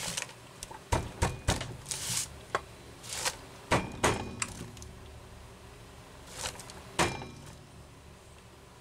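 Irregular clicks and knocks of the plastic housing and small metal parts of a Homelite 330 chainsaw being handled as its top handle is fitted back on, a few with a short metallic ring. The knocks come thickest in the first half, with a last sharp one about seven seconds in.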